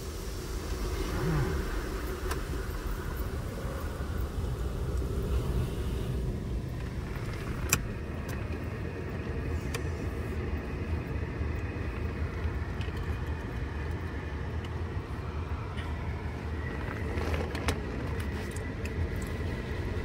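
Steady low rumble of a car heard from inside its cabin in an automatic car-wash bay, with one sharp click about eight seconds in.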